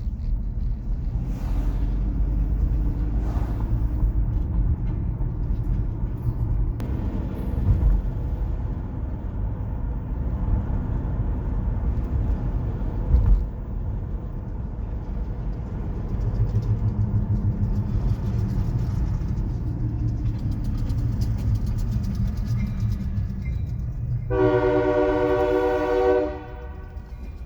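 Diesel locomotive running with a steady low rumble as the train moves through the crossing, then one horn blast of about two seconds near the end.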